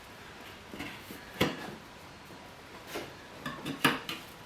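A few sharp metallic clicks and knocks of tools against a motorcycle wheel rim as a tire is being pried off it: one about a second and a half in, then several close together near the end.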